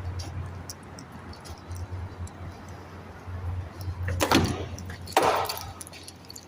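A door banging twice, about a second apart, over a low steady hum.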